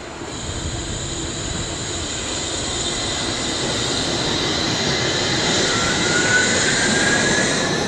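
Wuppertal Schwebebahn suspended railway car passing overhead: steel wheels running on its single rail, with an electric motor whine. The noise builds steadily, and a whine rising in pitch comes in about two thirds of the way through as the car gathers speed.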